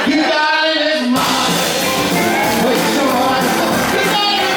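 A live band starts playing about a second in, loud and full, after a brief voice; a singer's voice carries over the band.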